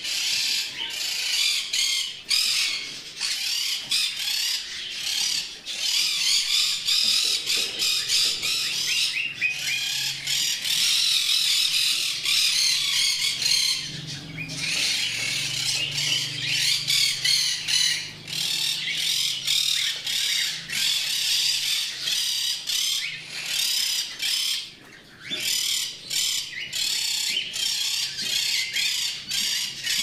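A roomful of caged birds, parakeets and other parrots among them, chattering and chirping all at once: a dense, unbroken high-pitched twittering with scattered squawks.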